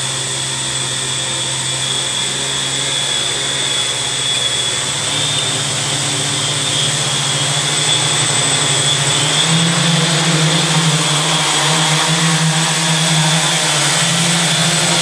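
DroidWorx SkyJib X4 octocopter's eight electric motors and propellers running with a steady hum and a thin high whine. The pitch climbs and steps up about two-thirds of the way through as the throttle is raised and the craft lifts off.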